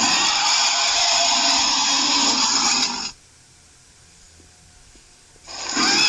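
Recorded monster roar sound effect for an evil giant ape, Kong, lasting about three seconds. A second roar starts near the end.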